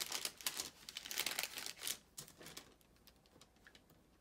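Paper crinkling and rustling as sticker sheets are handled, in quick crackly bursts that stop about two seconds in.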